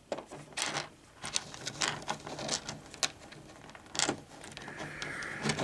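Small snap-together plastic model kit parts being handled, with scattered light clicks and taps as pieces are pulled off and fitted.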